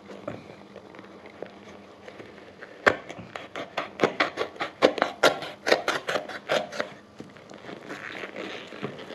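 A knife blade cutting and prying into the rubber sole of an Adidas sneaker. About three seconds in comes a rapid run of sharp cracks and snaps, several a second, for about four seconds, with quieter rustling and scraping before and after.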